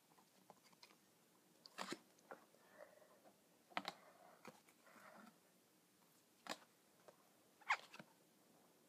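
Baseball cards being handled and flicked off a stack: a few sharp card snaps, irregularly spaced, with faint sliding of card on card in between.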